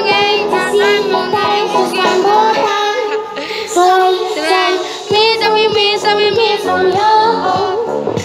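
Boys singing a pop song, their voices moving through a melody with held notes.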